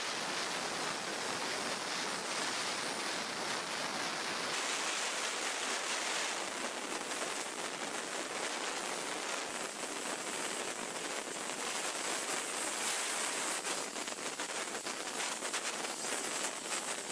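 Sandblaster hissing steadily as its nozzle blasts abrasive against an aluminium motorcycle engine casing to strip it clean.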